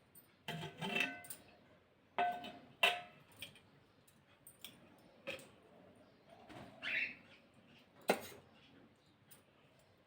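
Household objects being handled: a series of irregular knocks and clinks, a few of them ringing briefly.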